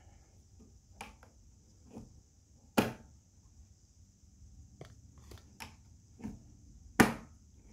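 Plastic spigot of a stainless-steel drink dispenser being worked by hand: a series of short clicks and knocks, with two louder knocks about three seconds in and near the end.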